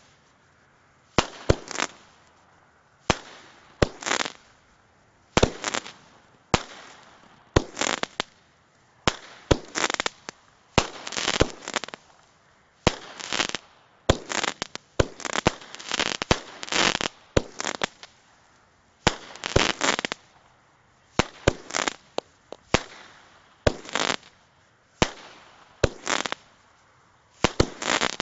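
Canyon Blaster multi-shot fireworks cake firing a continuous sequence of shots: sharp bangs in quick pairs and clusters, one group every second or two.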